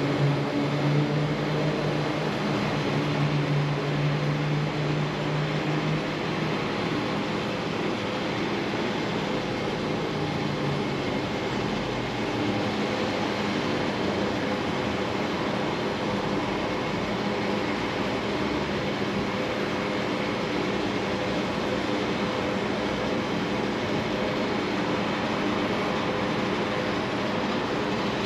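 Steady mechanical hum over an even rushing noise, with a low drone that drops out about six seconds in.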